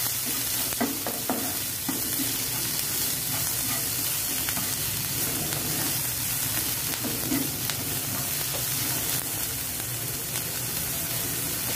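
Chopped onion, ginger and spring onion sizzling in hot oil in a nonstick frying pan, stirred with a plastic spatula that scrapes and taps the pan now and then.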